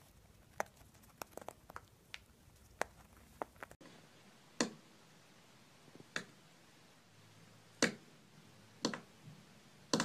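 A cockatoo crunching food in its beak, heard as small scattered clicks, then a few louder single taps about a second or more apart.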